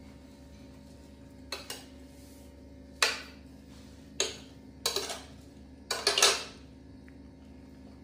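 Metal spoon clinking against a serving plate: a few short, sharp knocks, two faint ones then louder ones about three, four, five and six seconds in, each with a brief ring.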